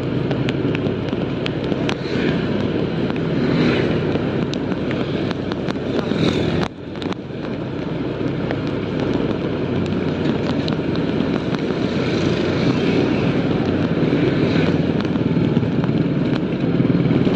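Wind and road noise from a motorcycle ride on a wet road in drizzle, with rapid crackling on the microphone over a steady rush. The sound drops out for a moment about seven seconds in.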